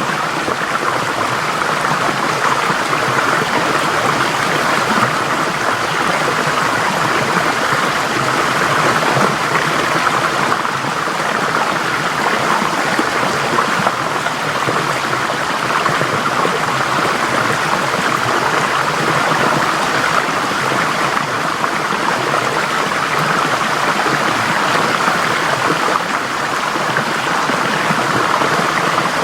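Forest stream flowing steadily over rocks, a constant rushing of water.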